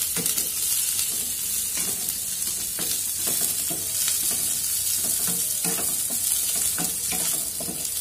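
Carrots, French beans and garlic sizzling in hot coconut oil in a frying pan, with a steady high hiss. A wooden spatula scrapes and taps the pan again and again as the vegetables are stirred.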